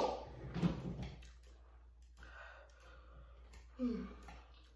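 Quiet eating: faint scattered clicks of forks against plates of noodles, and one brief falling vocal sound about four seconds in.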